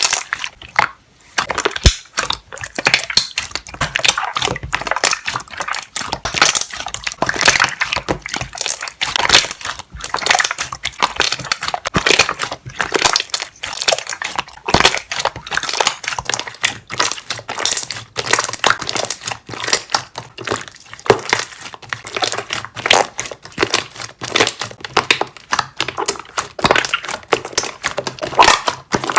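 Slime being squished and pressed, with a rapid, irregular run of popping and crackling from air bubbles trapped in it.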